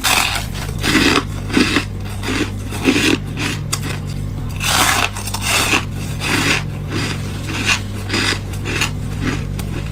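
Freezer frost being bitten and crunched, a string of sharp squeaky, crunchy bites roughly once or twice a second, over a steady low hum.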